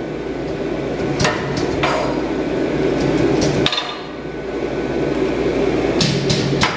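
Triple-ram 75-pound air power hammer running empty with no iron between its dies: a steady hiss of compressed air with scattered, irregular metallic clacks from the rams and valves.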